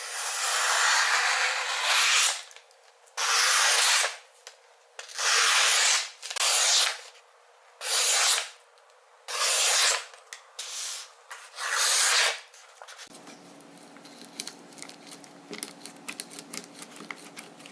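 Victorinox One Hand Trekker NS blade scraped across a sharpening stone to reprofile its rounded tip into a point. One long stroke is followed by about seven shorter, evenly spaced strokes. After that only faint small clicks are heard.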